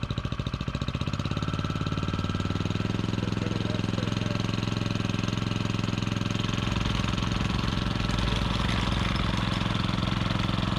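Small single-cylinder petrol engine of a vibrating plate compactor running steadily, with a rapid, even pulsing beat.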